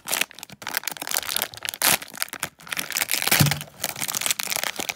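Foil blind-bag packet being crinkled and worked open by hand: an irregular crackling rustle, loudest just before two seconds in and again around three and a half seconds.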